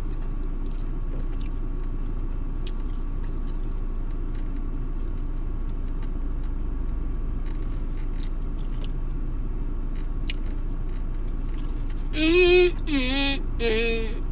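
Steady low rumble of a running car heard inside its cabin, with faint clicks of someone chewing chicken wings. Near the end a voice sings a few wavering notes.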